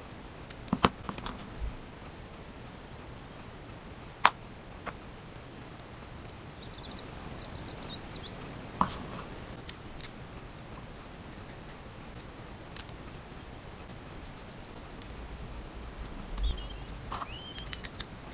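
Small kit parts and tools clicking and tapping on a workbench as a hobby RC car chassis is screwed together, a few sharp clicks spread through. Birds chirp faintly in the background a couple of times.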